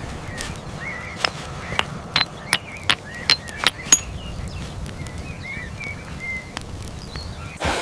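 A series of sharp knocks, about three a second, loudest between one and four seconds in, with small birds chirping over a low rumble.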